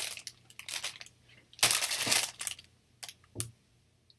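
Plastic packaging crinkling and rustling as it is handled, in a run of short rustles with a longer, louder rustle about halfway through and a couple of light clicks after it.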